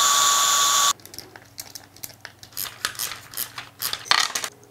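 Bosch cordless drill running steadily, then stopping abruptly about a second in. After it, light clicks and small clatter of laser-cut wooden parts and screws being handled.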